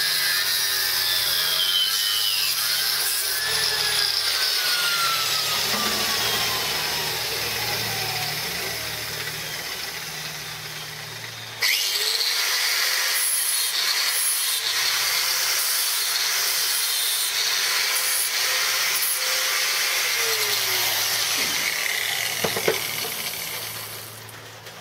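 Electric angle grinder grinding into steel, a loud steady whirring grind. About halfway through it drops off, then comes back suddenly at full strength, and it fades out near the end as the grinder comes off the work.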